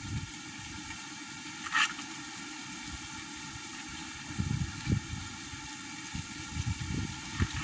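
Strong wind buffeting the microphone in irregular low gusts, heaviest about four and a half seconds in and again toward the end, over a steady high hiss. A brief sharp rustle about two seconds in.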